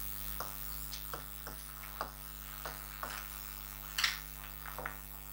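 Stylus pen tapping and sliding on the glass of an interactive touchscreen board as letters are written: light clicks roughly every half second, a sharper one about four seconds in, over a steady electrical hum.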